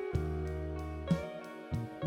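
Background music: plucked guitar with bass notes changing about once a second.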